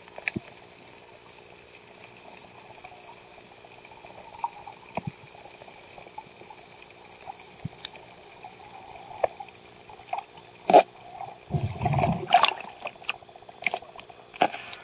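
Muffled underwater water sound through a camera housing, with scattered clicks, then louder splashing and bubbling about three-quarters of the way through as the camera and divers break the surface.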